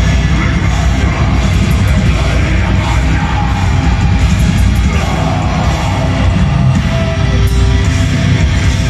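Black metal band playing live: loud, dense distorted electric guitars and drums that run without a break.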